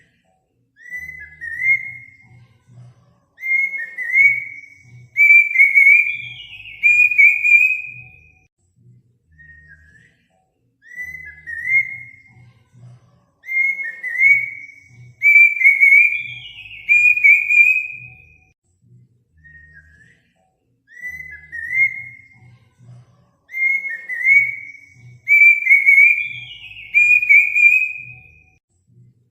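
Looped recording of a bird's whistled song: a phrase of about seven short whistles that grow louder and slightly higher, ending in a higher note that slides down. The phrase repeats three times, about every ten seconds.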